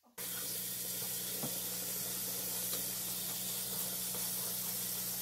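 Bathroom faucet running steadily into a sink, cutting in a moment after the start, with a steady low hum underneath and a few faint clicks of handling.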